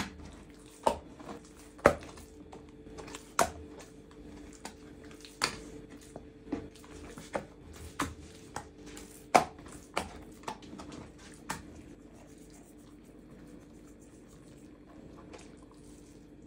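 Wet sourdough being stretched out on a wooden table: sharp, sticky slaps and smacks as the dough sheet is lifted and laid back down on the damp wood, about a dozen in the first twelve seconds, then quieter handling.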